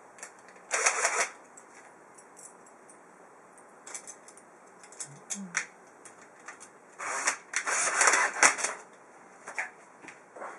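Small metal DIN-rail end stops clicking and rattling as they are handled and fitted onto the rails, in scattered short bursts, the busiest cluster about seven to nine seconds in.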